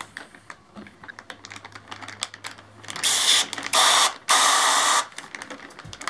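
A plastic zip bag crinkling and clicking as it is handled, then a few short hissing spurts of carbon monoxide test gas sprayed through a thin tube into the bag, about three to five seconds in.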